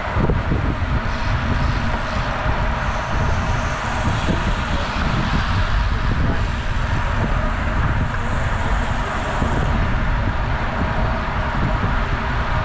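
Steady wind rush buffeting the microphone of a camera on a moving road bike, over the hum of tyres on pavement.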